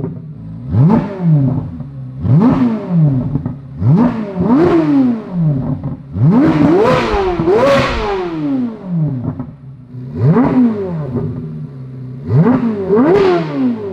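Chevrolet Corvette C8 Z06's flat-plane-crank V8 revved through its exhaust about ten times in quick throttle blips, each rising sharply and falling back to idle.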